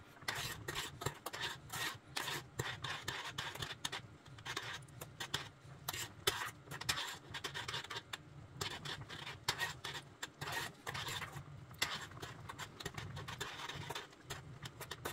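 Metal spoon stirring and scraping around the bottom and sides of a stainless steel saucepan of thin, watery macaroni cheese, in quick, irregular strokes.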